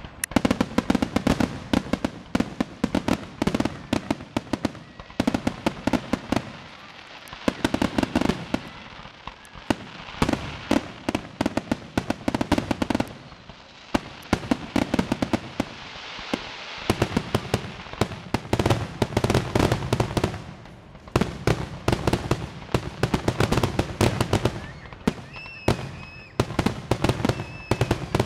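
Aerial fireworks going off in a dense, rapid barrage of shell bursts and crackling, easing off briefly a few times before picking up again. Near the end, a couple of short high whistles sound among the bangs.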